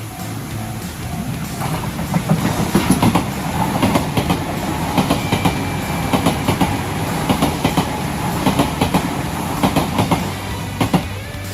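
A train passing close by, its wheels clacking over the rail joints in quick irregular groups. The sound builds about two seconds in and drops away near the end.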